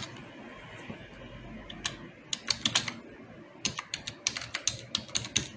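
Typing on a computer keyboard: irregular runs of key clicks, several a second, with short pauses between the runs.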